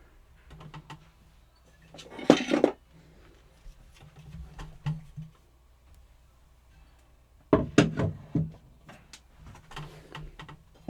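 Tools and wooden parts of a tool chest being handled: scattered knocks and clicks, with louder clattering bumps about two seconds in and again about seven and a half seconds in.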